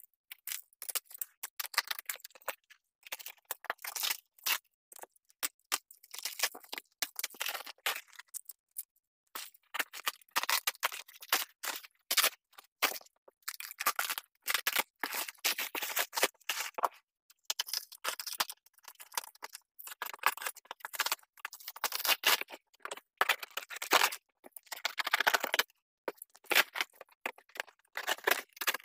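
Black plastic wrapping and packing tape being cut and pulled off a large cardboard box, the plastic rustling and tearing in irregular bursts, with cardboard flaps scraping as they are opened near the end.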